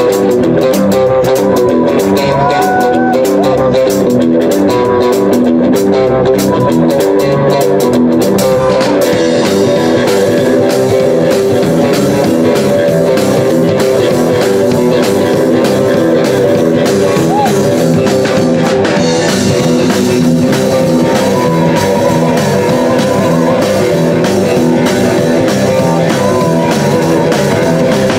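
Live rock 'n' roll band playing: electric guitars over a driving drum-kit beat.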